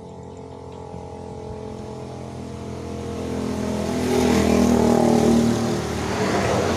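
A motor vehicle's engine running as it passes by, growing louder to a peak about four to five seconds in, then easing slightly.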